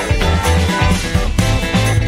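Background music with a moving bass line and a steady beat.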